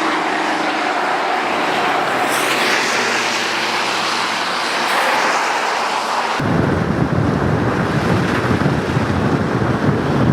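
Loud, steady rush of wind on the microphone. About six seconds in it changes abruptly to a heavier, lower buffeting.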